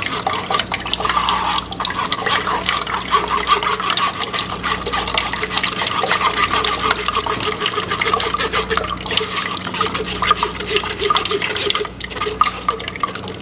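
Blended watermelon juice poured through a strainer, a steady stream of liquid splashing and trickling into the container below as the seeds and pulp are held back.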